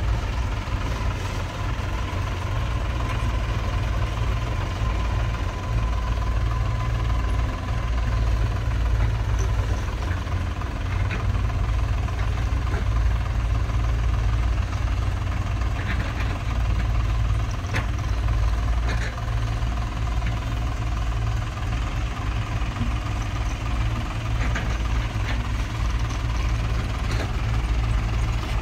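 Heavy diesel earthmoving machinery running steadily at low revs, with a few faint sharp knocks scattered through.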